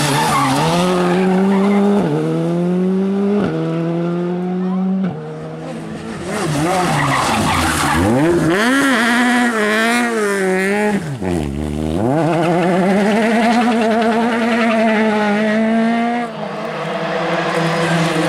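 Rally cars at full racing pace, among them a Škoda Fabia R5 and a Peugeot 208: the first accelerates hard with quick upshifts, its engine note climbing and dropping back at each change. Midway, a car slides through a hairpin, its revs swinging up and down with tyres skidding, before another engine climbs steadily through the gears.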